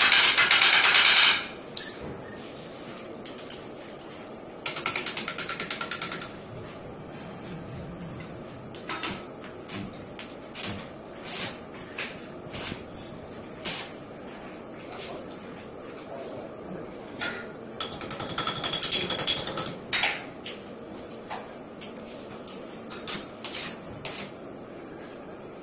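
Electric hand drill working stainless steel railing fittings in short bursts. It runs loudly and cuts off about a second in, then runs again around five seconds in and near eighteen seconds in, with sharp metal clinks and taps between the bursts.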